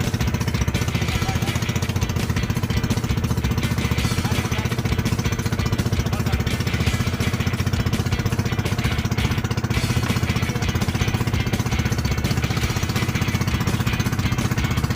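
A small fishing boat's engine running steadily at close range, with a fast, even chugging pulse.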